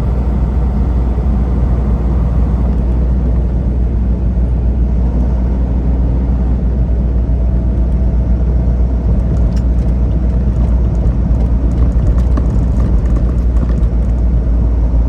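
Semi truck's diesel engine and road noise heard from inside the cab while driving, a steady low rumble.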